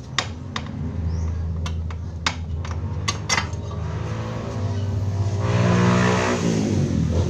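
An engine running with a steady hum, revved up about five and a half seconds in and dropping back near the end, with several sharp clicks in the first half.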